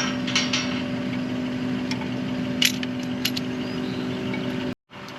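An engine idling steadily, with a few sharp metal clinks. The sound cuts out briefly near the end.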